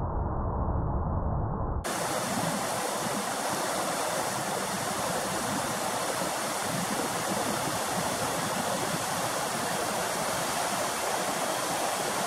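Glacier meltwater pouring off the ice and rushing over rocks: a steady rush of water. About two seconds in it changes abruptly from a dull, low rush to a brighter, hissier one.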